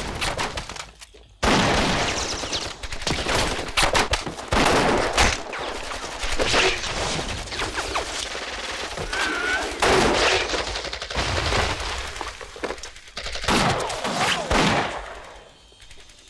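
War-film battle soundtrack: heavy rifle and machine-gun fire in close street fighting. It starts abruptly after a short lull about a second in, runs densely with loud volleys, and fades out near the end.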